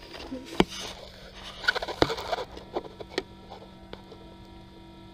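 Handling noise against a clear plastic incubator lid: rustling and a few sharp clicks and taps as fingers and the camera rub and knock on the plastic, over the steady hum of the running incubator.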